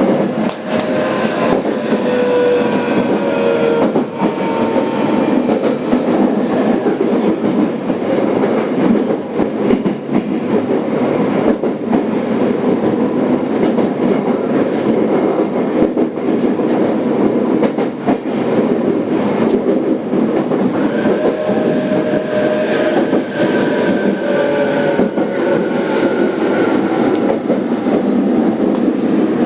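Inside a JR Kyushu 817 series 3000-subseries electric train's motor car, running: steady wheel-and-rail rumble with clickety-clack, overlaid by the whine of the inverter-driven traction motors. The whine glides down in pitch over the first few seconds, and again in the last several seconds.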